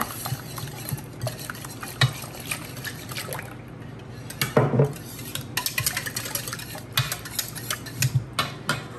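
Wire whisk beating eggs and half-and-half in a ceramic mixing bowl: a fast run of irregular clicking and scraping taps of the wires against the bowl, with a louder knock about halfway through.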